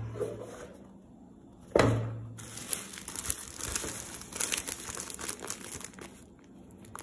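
Clear plastic bag crinkling as it is handled and turned over, with a single thump just under two seconds in.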